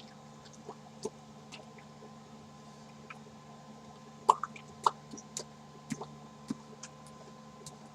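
Scattered light clicks and taps, about a dozen at uneven intervals and the strongest around the middle, over a faint steady hum.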